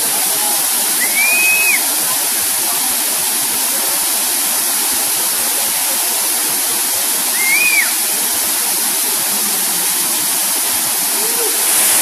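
Waterfall pouring steadily into a pool, a constant rushing hiss. Twice, about a second in and again some six seconds later, a short high call rises and then falls above it.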